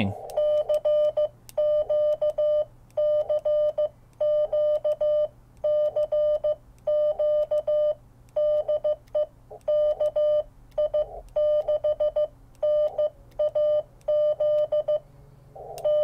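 Morse code (CW) tone, a steady pitch near 600 Hz, keyed on and off in short dits and longer dahs from a Morse paddle through the TinyMIDI adapter to the SDR app on the phone. The keyed characters come in groups with brief gaps between them.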